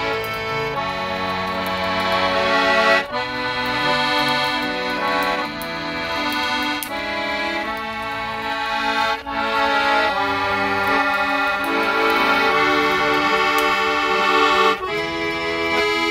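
Piano accordion playing an instrumental tune, a melody over sustained chords that change in steps.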